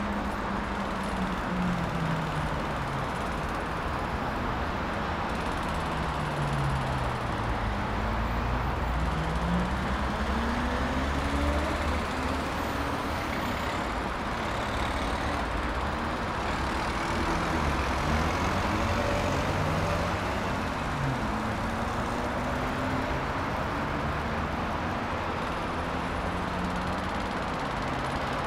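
Distant road traffic: a steady rush of noise, with engine tones rising and falling as several vehicles pass.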